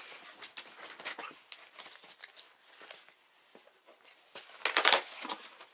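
Rustling and handling of a cardboard shipping box and its packaging as it is opened, with scattered light clicks and a louder burst of rustling about four and a half seconds in.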